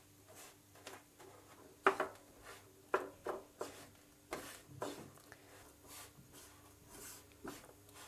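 Silicone spatula scraping and stirring buttered digestive-biscuit crumbs around a nonstick frying pan as they toast, in short irregular strokes, the loudest about two and three seconds in.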